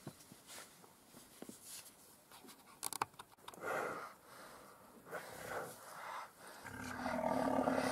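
Male black rhino spraying urine onto a bush in short hissing squirts, with a couple of sharp clicks just before. Near the end comes a drawn-out, wheezing, snort-like breath from a rhino.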